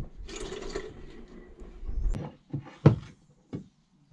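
Handling noises from a pipe being moved about: a rustle about half a second in, then several knocks, the loudest nearly three seconds in.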